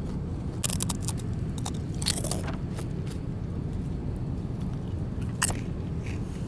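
Crunchy snack being bitten and chewed, with a few sharp crunches, over the steady low rumble of an airliner cabin.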